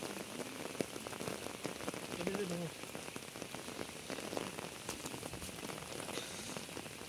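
Steady rain falling, a dense patter of small drops.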